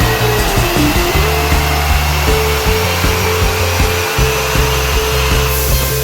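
Background music with a stepping bass line over a loud, steady rushing noise.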